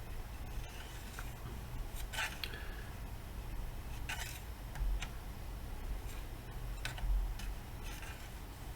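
A few faint, short clicks and light taps of small metal tools and parts being handled, over a steady low hum.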